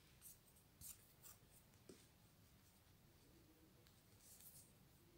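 Near silence, with a few faint rustles and ticks of a metal sewing needle being passed through wool yarn and the yarn being handled, around a second in and again near the end.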